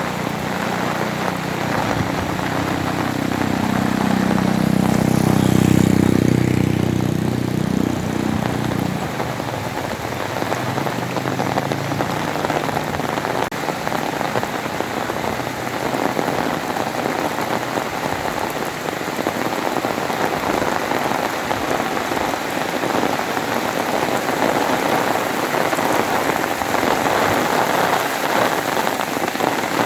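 Heavy rain falling steadily. In the first few seconds a motor vehicle's engine hum swells, is loudest about five or six seconds in, and fades out by about nine seconds.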